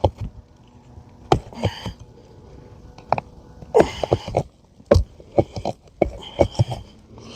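Light, irregular metal taps, a dozen or so with some in quick runs, as a nail-removal tool is tapped under a roofing nail driven in at an angle through an asphalt shingle, with brief scrapes between the taps.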